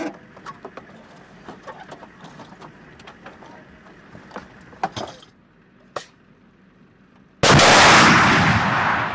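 Clicks and knocks of a TOW missile tube being handled and latched into an M41A7 ITAS launcher. Then, about seven seconds in, the sudden loud blast of a TOW missile launching, carrying on as a roar that tails off.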